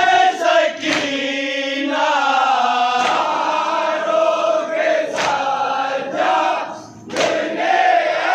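A group of men chanting a noha, a Shia mourning lament, in unison, with long held lines that slide in pitch. There is a short break about seven seconds in before the voices come back in together.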